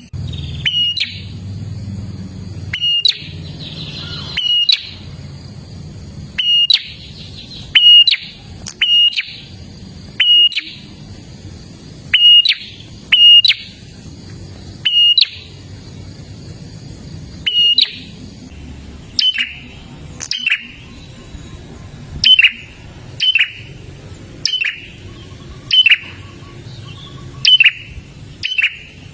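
Prinia (prenjak) calling: loud, sharp notes that each sweep quickly downward, repeated about once every second or two, sometimes in pairs. A faint steady hum lies underneath.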